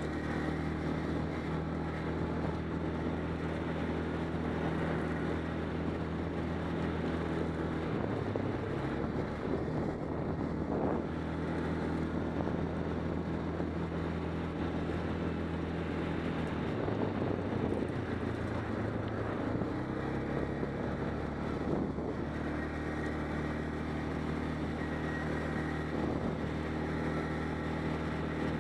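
ATV engine running at a steady riding speed. Its pitch dips briefly about eight seconds in, and again for a few seconds around seventeen seconds.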